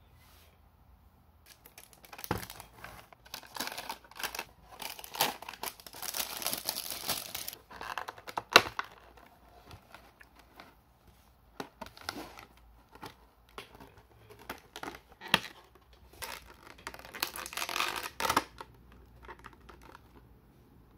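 Toy packaging being opened: a paper wrapping pulled off a figure and a molded tray and clear plastic blister handled. It comes as bursts of paper rustling and crinkling, with a few sharp plastic clicks.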